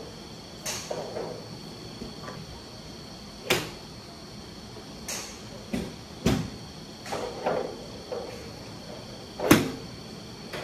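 Pitching wedge striking a golf ball off a range mat: one sharp, loud click about nine and a half seconds in. Several softer knocks and clicks come before it.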